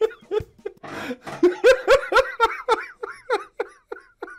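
A man and a young woman laughing hard together, in quick repeated bursts of laughter that thin out near the end.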